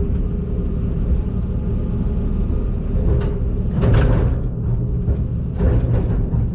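Heavy machine's diesel engine running steadily with a low rumble, with a few short knocks about halfway through.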